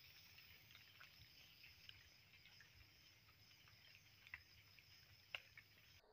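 Near silence: a faint steady background hiss with a few soft scattered clicks, the sharpest about five seconds in.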